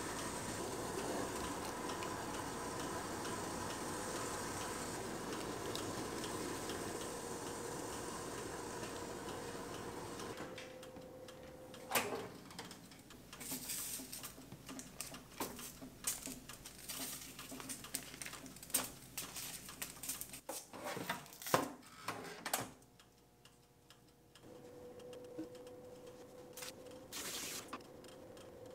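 Gas burner of a portable butane stove hissing steadily under a pot of water. From about ten seconds in, a metal spatula and bagels clack and knock on the metal tray of a toaster oven, a run of sharp clicks. Near the end, the Cuisinart air fryer oven runs with a steady hum.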